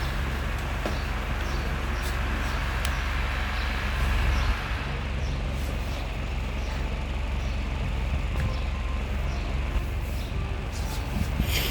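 Mini ceiling fan running steadily, its motor hum mixed with rushing air and a low rumble; the rushing eases slightly about four and a half seconds in.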